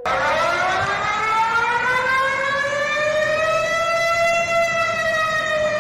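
Civil defence warning siren starting abruptly and wailing, its pitch rising over about four seconds and then slowly beginning to fall.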